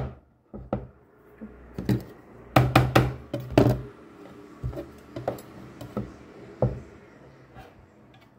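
Metal baking pan, turned upside down on a wooden cutting board, knocked and tapped to free a steamed banana cake: a run of irregular knocks, loudest in a quick cluster about halfway through, then lighter taps.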